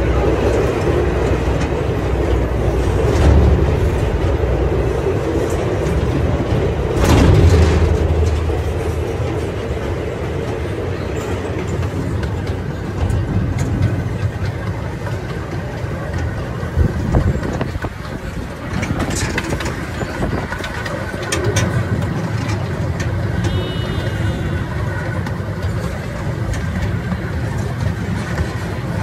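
A small park ride train running along, a steady low rumble with rattling from its open passenger car. It is louder for the first eight seconds or so while passing through a tunnel, then settles to a steadier, slightly quieter run in the open.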